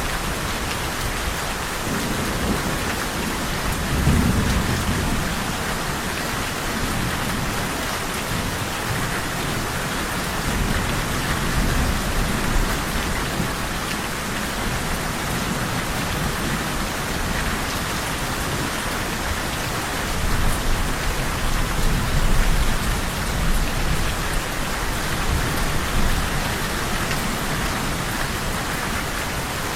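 Steady rain falling, a dense even hiss, with low rumbles of thunder swelling about four seconds in and again around twenty seconds in.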